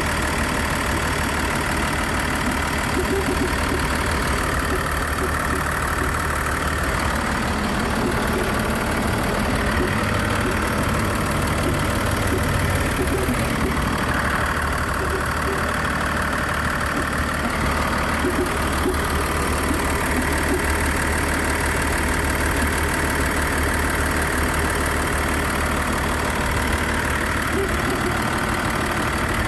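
Mazda CX-60 running with a steady low hum and an abnormal noise whose source the owner cannot locate and means to ask the dealer about.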